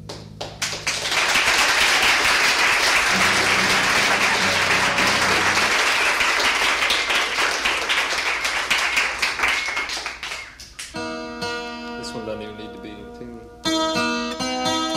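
Applause, a loud dense clatter of clapping that fades out after about ten seconds, with a few low bass notes under it. An acoustic guitar then starts picking notes.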